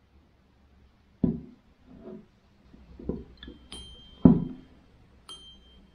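Handling noise from a spinning reel as a knot in braided line is slid down and cinched onto the spool: a few soft knocks spread about a second apart, and two short metallic clinks, each with a brief ring.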